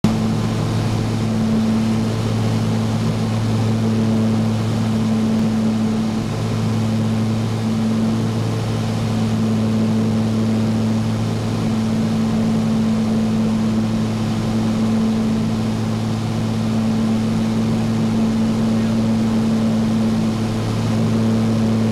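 Steady drone of a light twin-engine Cessna's piston engines and propellers in cruise, heard inside the cabin, with a deep hum and a slow throb that swells and fades every few seconds over a steady rush of air.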